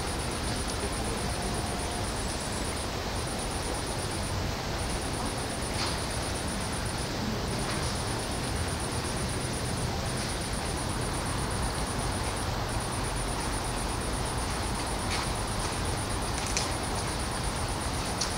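Steady outdoor background noise with a low rumble, overlaid by a high, fast chirring that breaks off briefly every few seconds, and a few faint clicks.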